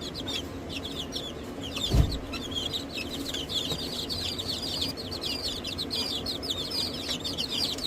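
A crowd of chicks peeping continuously in short, high-pitched chirps, with a single dull thump about two seconds in.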